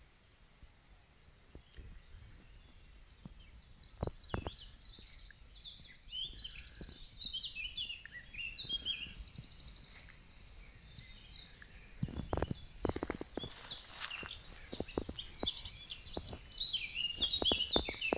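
Woodland songbirds singing: many short high chirps and trills, busier in the second half, with a fast trill about halfway through. Scattered clicks and rustles come and go, most of them in the last six seconds.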